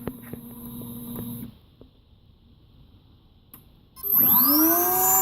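V8/X6-style computerized key cutting machine starting a cut: a low hum with light clicks as it positions, a short quiet pause with a couple of clicks, then about four seconds in the cutter motor spins up, a whine rising in pitch and settling into a steady hum.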